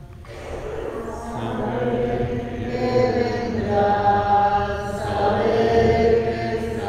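Voices singing a hymn in long, held notes, with the pitch moving from note to note every second or so.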